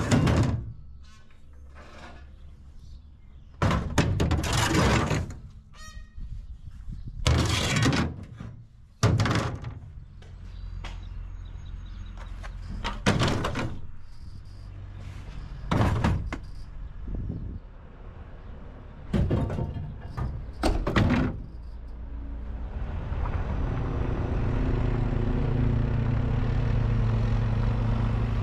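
Repeated thunks and clatter of wooden posts, hand tools and a plastic crate being set down in a pickup truck's bed. About two-thirds of the way in, a steady engine rumble takes over.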